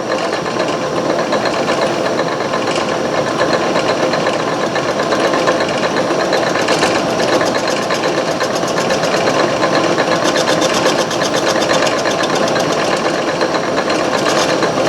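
Antique Garvin metal lathe running under power with a steady, fast, even rhythmic clatter while a cutter takes a light skim cut off the stock.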